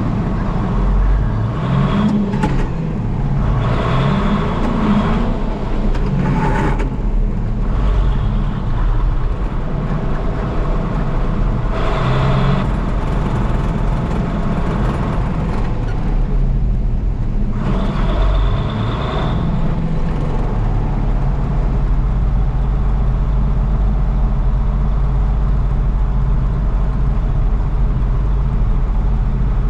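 Farm tractor engine running steadily as the tractor drives along, heard close up from a camera on the tractor, with a constant low hum. Several brief rushes of louder, hissier noise come and go in the first two-thirds.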